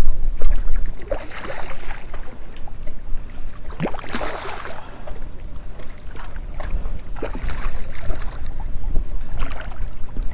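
A hooked redfish splashing and thrashing at the water's surface in several short bursts, the loudest about four seconds in, over a steady low wind rumble on the microphone.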